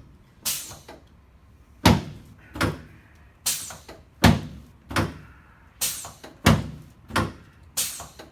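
About ten sharp, wooden-sounding thuds in an even series, roughly one every 0.7 seconds, during chiropractic work on a patient lying face down on the adjusting table.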